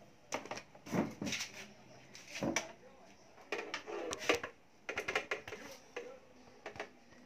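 Scattered clicks, knocks and rustling from hands working wires and plastic parts around a scooter's headlight wiring.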